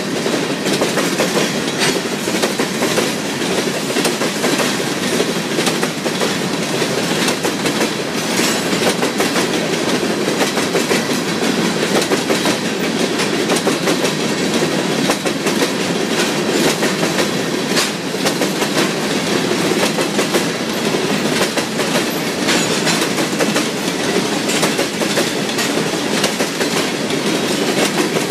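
Freight train rolling past steadily, its wheels clattering over the rail joints in a continuous run of clicks.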